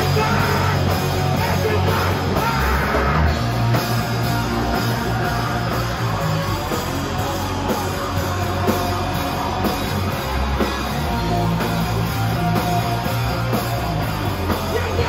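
Loud rock music from a band, distorted electric guitar over a drum kit, going on without a break.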